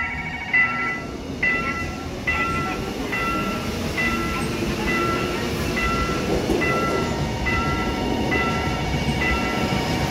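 A level-crossing warning bell dings steadily, just over once a second, while a Seoul Metro Line 1 electric train runs through the crossing, its wheels and cars passing close by.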